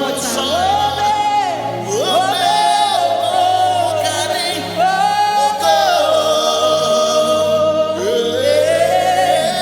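Gospel worship music: a singer's voice slides up into long held high notes, four phrases in turn, over steady low sustained backing chords.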